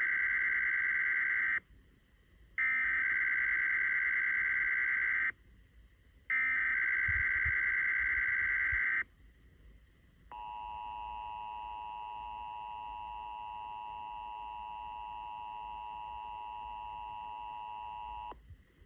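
Emergency Alert System SAME header: three bursts of rapid warbling data tones, about a second apart, that mark the start of an EAS Required Monthly Test. After a short gap comes the steady two-tone EAS attention signal, held about eight seconds, which cuts off sharply.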